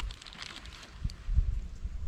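Wind buffeting the microphone: an uneven low rumble with faint rustling and a few light ticks.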